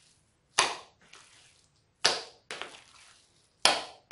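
Handfuls of raw minced meat slapped down into a plastic bowl by hand, four wet slaps about a second apart: the mince is being beaten to make it thick and dense for cutlets.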